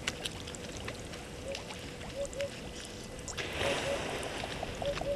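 Outdoor bush ambience: a low steady rumble with short paired bird calls repeating several times and scattered faint clicks, and a brief rush of noise a little past the middle.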